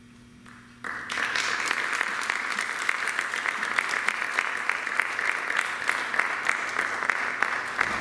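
A concert band's last held chord fades out faintly, then audience applause breaks out about a second in and carries on steadily.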